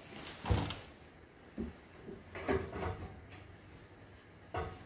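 A few separate clunks and knocks of metal tools and exhaust parts being handled during exhaust removal, spaced about a second apart, the loudest about half a second in.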